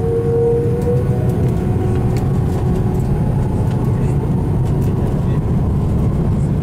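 Jet airliner's wing-mounted turbofan engines heard from inside the cabin, spooling up for takeoff. A rising whine fades about a second in, leaving a steady loud rumble as the plane rolls along the runway, with faint rattles.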